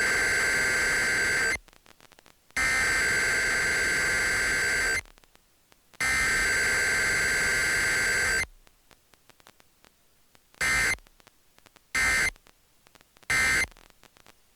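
Emergency Alert System SAME digital header for a Required Weekly Test: three harsh buzzing data bursts about two and a half seconds each, a second apart, followed by three short end-of-message bursts about a second and a quarter apart.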